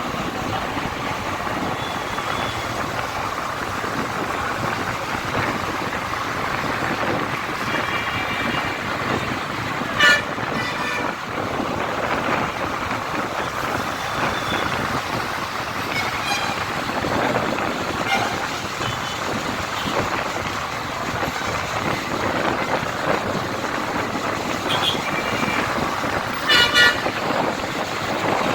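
Steady city road traffic noise with vehicle horns honking now and then: a short loud honk about ten seconds in, and two loud honks close together near the end.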